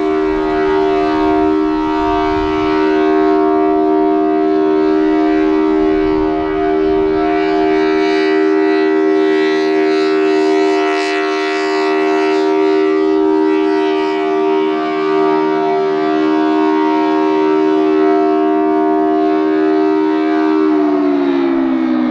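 Thunderbolt 1000T tornado siren sounding its steady full alert, its 4-port and 5-port rotors giving a loud two-note chord. A low rumble underneath drops away about eight seconds in. Near the end the pitch starts to fall as the siren begins winding down.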